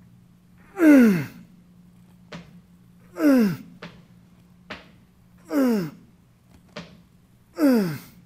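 A man's exhaling grunt on each rep of a warm-up bench press, four times about two seconds apart, each one sliding down in pitch. Short faint clicks come between the grunts.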